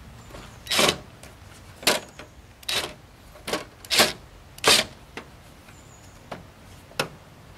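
Cordless drill driving license-plate screws into a truck tailgate, running in short bursts of well under a second each, about one a second, with a few fainter ones near the end.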